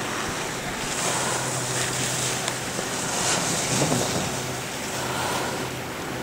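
Wind buffeting the camera's microphone, a steady rushing noise that swells and eases every second or two.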